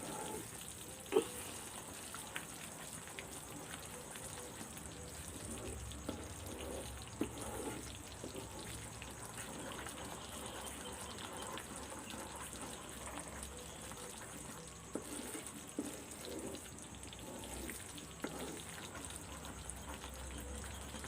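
Thick gram-flour Mysore pak mixture sizzling in oil in a pan while a spoon stirs and scrapes it without pause, so that it does not stick to the bottom. Occasional short knocks of the spoon against the pan; the sharpest comes about a second in.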